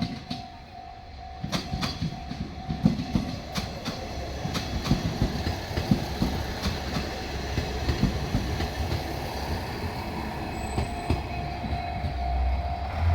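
A diesel train passing a level crossing, its wheels clacking irregularly over the rail joints over a steady low engine and wheel rumble. A steady warning tone from the crossing signal sounds at the start and again near the end.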